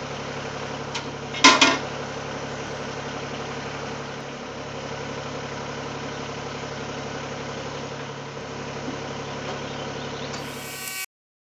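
Mahindra eMax 20S HST compact tractor's diesel engine running steadily at working speed to drive the backhoe hydraulics, with a sharp double knock about a second and a half in. The sound cuts off suddenly near the end.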